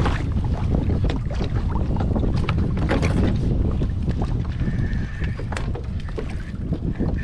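Wind buffeting the microphone over water slapping and splashing against a kayak hull, with scattered short knocks. A faint high steady tone comes in briefly about two-thirds through and again near the end.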